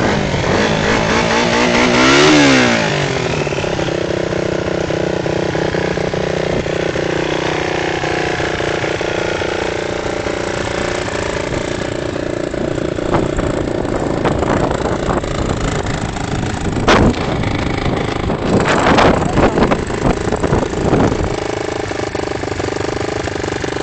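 Engine of an off-road vehicle running, revving up and dropping back about two seconds in, then running steadily. Near the end come a sharp knock and a few seconds of uneven bangs and rattles.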